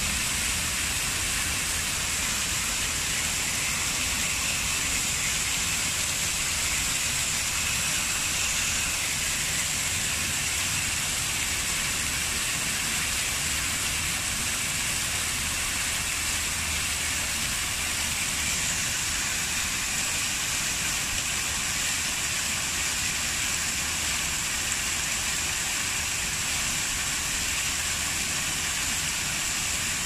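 Fountain's many vertical water jets spraying up and splashing back into square stone basins: a steady rushing splash that does not change.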